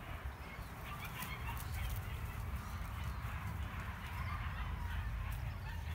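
Wind rumbling on the microphone, with faint short high animal calls scattered through it.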